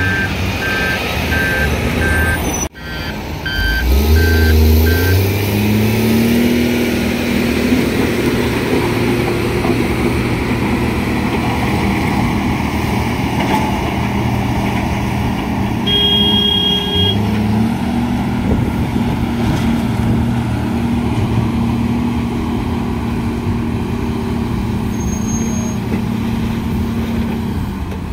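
Heavy diesel engines of excavators and dump trucks running, with a reversing alarm beeping steadily for the first five seconds. An engine revs up about four seconds in and again around seventeen seconds, with a brief high tone just before the second rise.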